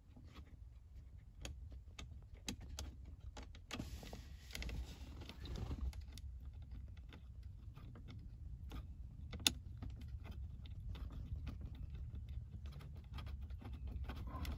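Light scattered clicks and rattles of small metal nuts and fittings being handled and threaded onto studs by hand. There is a rustling stretch about four to six seconds in and one sharper click about nine and a half seconds in.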